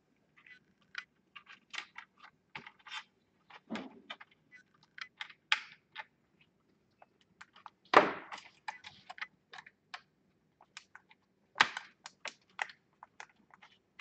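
Irregular small clicks, taps and scrapes of hands and a small screwdriver working on the parts inside an opened laptop base, with sharper knocks about four, eight and twelve seconds in.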